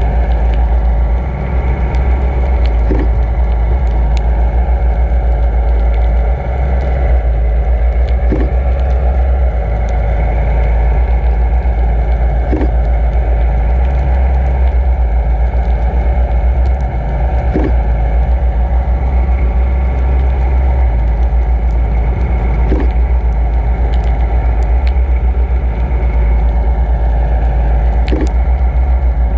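Steady low rumble of water rushing past an underwater camera housing as it is towed, carrying the drone of the tow boat's motor. A faint knock comes about every five seconds.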